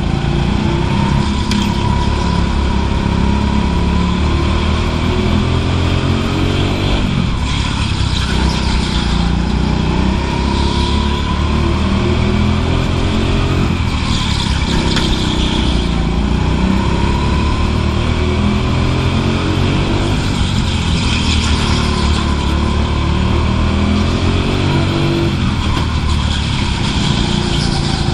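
Go-kart engine heard onboard. It revs up steadily in pitch for several seconds, then drops off sharply about every six seconds, four times in all.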